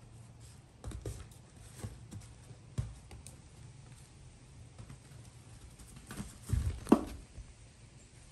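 Goat kids' hooves tapping and thumping on the barn floor in scattered, irregular steps, with a sharper knock near the end.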